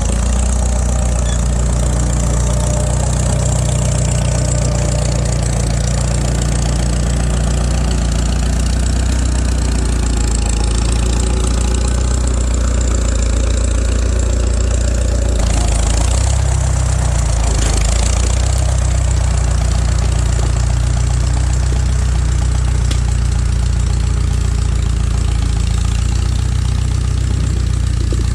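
Farmall tractor engine running steadily; the sound changes abruptly about halfway through.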